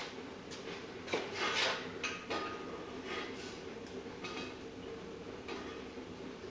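Thin aluminium sheet metal being handled and bent by hand: light metallic clinks, taps and scrapes as the folded sign piece's top tab is worked up into a hook, the loudest clinks about one to two seconds in.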